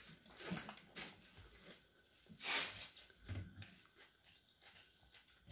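Faint sounds of people eating the last pani puri: chewing, swallowing and breathing, with short noisy breaths and a sharper hissing breath a little past halfway, and a few soft low thumps.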